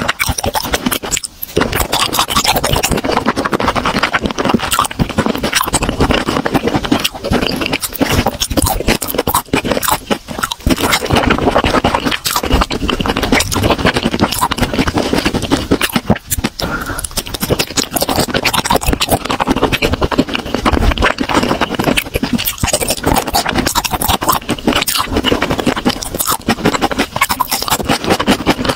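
Close-miked chewing: continuous wet, crackly crunching and mouth sounds of someone eating a mouthful of food, with many small clicks.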